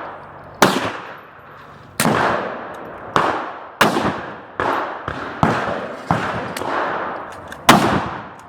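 Rifle fired shot by shot, about nine shots at an uneven pace of roughly one a second, each followed by a long echoing tail.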